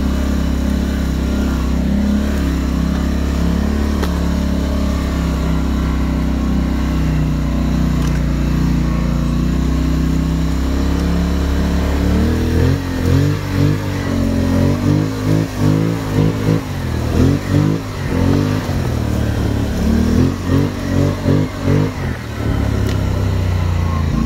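Polaris Sportsman 850 ATV's parallel-twin engine running under way. Then, from about halfway, its pitch rises and falls in quick repeated surges, about twice a second, for some ten seconds, before it settles back to steady running near the end.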